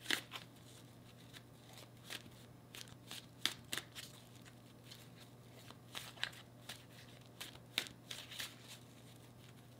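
Deck of tarot cards being shuffled by hand, overhand style: irregular light flicks and slaps of cards, some sharper than others, over a faint steady hum.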